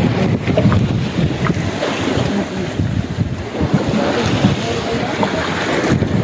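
Wind buffeting the microphone aboard a small fishing boat at sea, a steady low rumble with no engine pitch in it.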